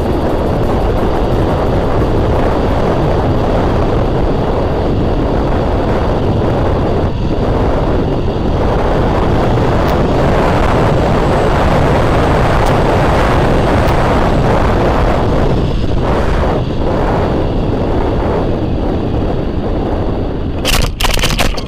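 Steady, loud rush of wind buffeting the microphone of an FPV quadcopter, mixed with its propeller noise, in strong gusts. A quick cluster of sharp clicks and knocks comes near the end.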